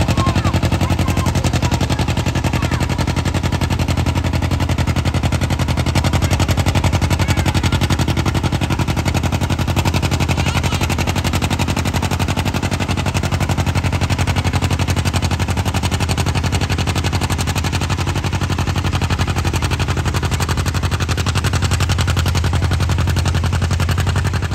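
John Deere two-cylinder tractor engine working hard under load, pulling a weight-transfer sled, its exhaust popping in a rapid, steady beat.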